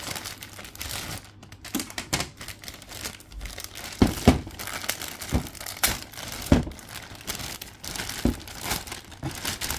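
Clear plastic bag crinkling and rustling as a hand pulls at it around a large plastic toy motorbike, with several sharp knocks about midway through.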